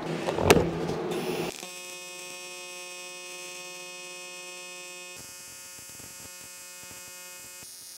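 AC TIG welding arc on aluminium buzzing: a louder rasp with a sharp crack about half a second in, then after about a second and a half a steady buzzing hum whose tone shifts slightly about five seconds in.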